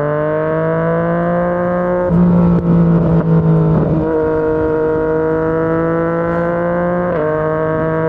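Yamaha MT-09 three-cylinder engine through a Yoshimura R55 slip-on exhaust, pulling under acceleration with its note slowly rising. The note breaks and drops twice, about two seconds in and near the end, as it shifts up, with a rougher, uneven patch after the first shift.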